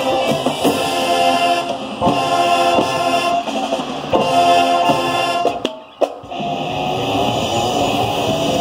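High school marching band playing loud, sustained chords over its front ensemble. The music breaks off briefly about five and a half seconds in, then comes back with a single sharp hit and carries on.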